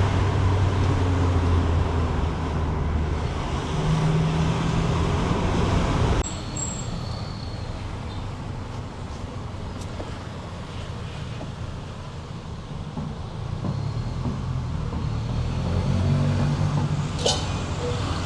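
Car engine and tyre noise heard from inside the moving car, a steady low rumble that drops off abruptly about six seconds in and then slowly builds again.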